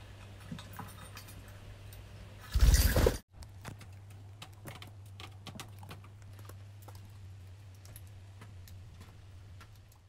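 Light clicks and taps from a budgie moving about and pecking at seed, over a steady low hum, with one loud rushing burst about three seconds in.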